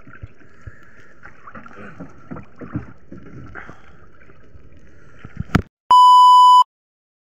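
A loud, steady test-tone beep of a TV colour-bars card, lasting under a second near the end and cutting off abruptly into silence. Before it, quieter knocks and water sounds from the wooden outrigger boat.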